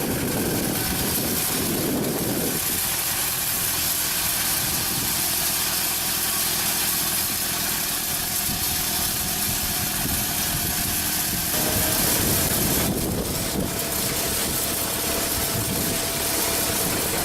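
A large engine running steadily, with a dense, even mechanical noise and a low rumble; the sound shifts slightly partway through.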